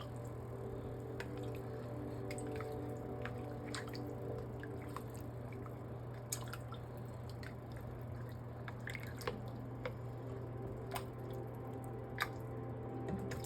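Spoon stirring chicken and water in a soup pot: soft liquid sloshing with scattered small clicks of the spoon against the pot, over a steady low hum.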